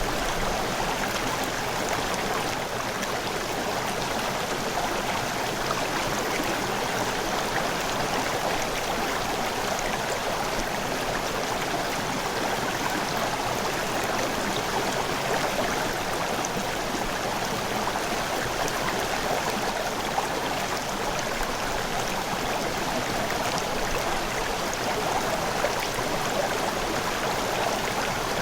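River water flowing: an even, steady rush of running water.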